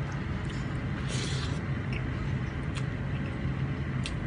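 Eating at the table: a short slurp about a second in, and a few light clicks of a fork and clam shells on the plate, over a steady low background hum.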